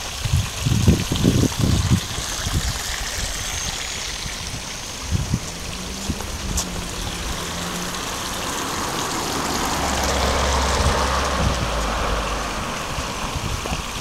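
Shallow stream trickling over a small drop in its stone-lined channel, with a car passing, loudest about ten seconds in. A few low thumps in the first two seconds.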